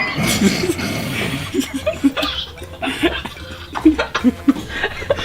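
Laughter: a string of short, repeated chuckles.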